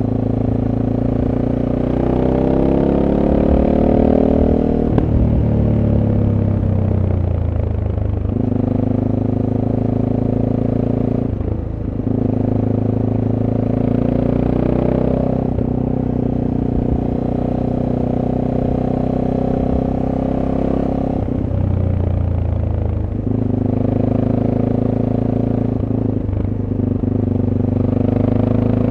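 SWM Superdual T's single-cylinder engine with its stock exhaust, ridden on board: the engine note rises under acceleration a few seconds in, falls away as the throttle closes, and keeps rising and falling through the curves, with short breaks in the note at gear changes.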